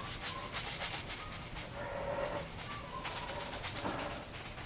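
Breadcrumbs shaken from a canister over a slow cooker, a quick run of dry rattling shakes that scatter crumbs onto the shredded cheese.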